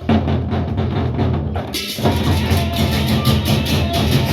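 A Sasak gendang beleq ensemble strikes up its opening piece: large barrel drums beating a fast even rhythm. About two seconds in, clashing cymbals join in.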